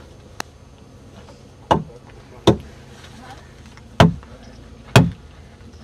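Wooden mallet striking a steel chisel driven into a large log, four heavy blows at uneven intervals, with a faint light click shortly before the first.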